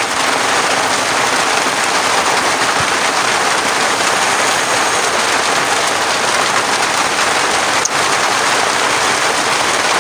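Steady, loud rain falling.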